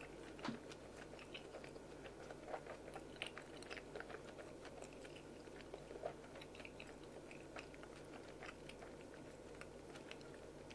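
A person chewing food, faint, with many small scattered clicks and taps.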